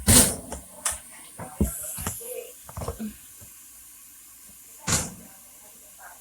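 Kitchen cooking sounds: a loud, brief hissing clatter at the start, then a series of light knocks and clicks of cookware and utensils, with one more loud knock about five seconds in.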